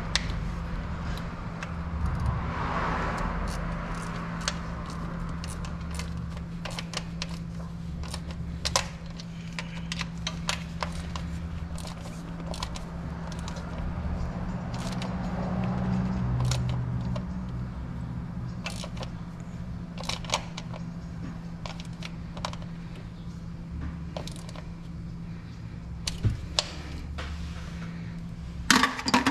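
Hand ratchet and sockets clicking and clinking at irregular moments as valve cover bolts are run down and tightened, over a steady low hum.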